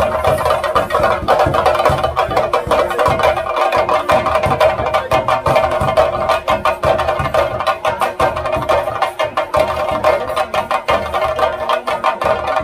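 Live theyyam temple percussion: fast, dense chenda drum strokes with cymbals, over a steady high tone, playing continuously.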